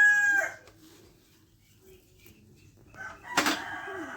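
Rooster crowing: the end of one crow fades out in the first half-second, and another crow starts about three seconds in, with a sharp click near its start.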